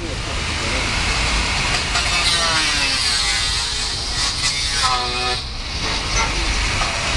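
Outdoor road traffic noise, with a vehicle passing in the middle.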